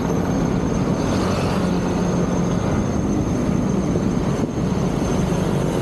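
Road traffic noise from motor vehicles on a busy road: a steady, loud engine rumble.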